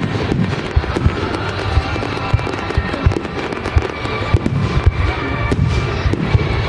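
Fireworks going off in quick succession, a dense run of bangs and crackles with no pause.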